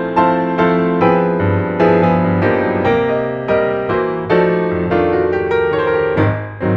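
Background piano music, single notes struck about twice a second, each ringing and fading.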